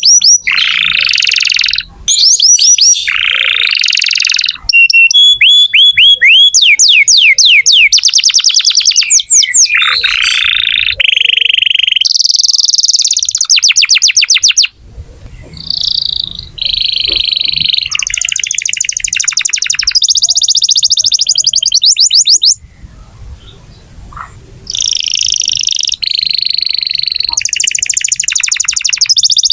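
Domestic canary in full song: loud, fast, high-pitched tours of rapidly repeated notes and rolling trills that change every second or two. The song drops out briefly twice, about halfway and two-thirds of the way through.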